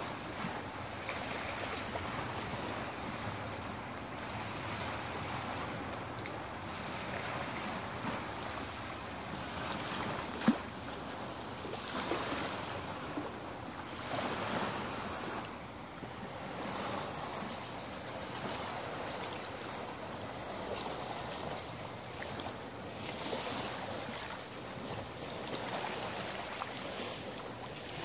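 Small lake waves lapping on the shore, a steady wash that swells and fades every few seconds. A single sharp click about ten seconds in.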